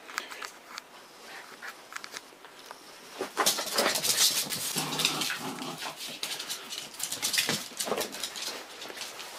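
Small dogs playing, with scuffling, pattering and dog noises, getting louder about three seconds in.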